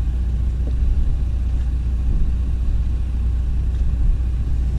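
John Deere 310SJ backhoe's diesel engine running steadily with a low rumble.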